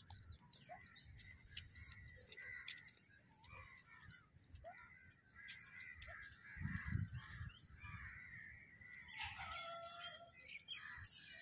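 Faint outdoor birdsong: many short chirps and calls, with crows cawing among them. A brief low rumble comes about seven seconds in.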